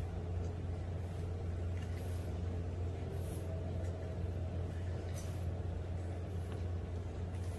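A steady low hum, with faint, brief scratchy noises now and then from an English bulldog puppy gnawing on a plastic whiffle ball.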